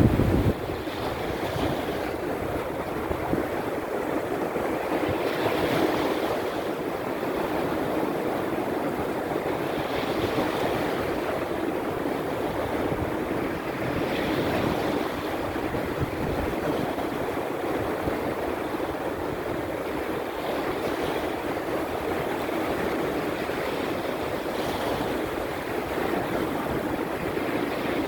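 Baltic Sea surf in a small storm: a steady wash of breaking waves, each swelling and fading about every four to five seconds.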